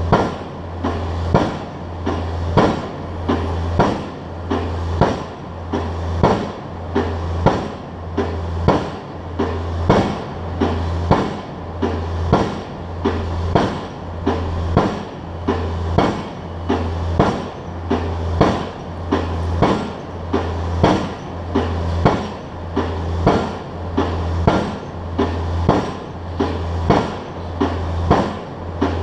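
Pile driver hammering a pile, one heavy metallic blow about every second and a half in a steady rhythm, over a low pulsing hum from the rig.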